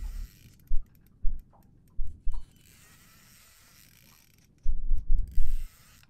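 Fishing reel being cranked against a hooked fish, its gears giving a fine ticking whirr. Several loud, deep thumps break in, a few in the first half and a cluster near the end.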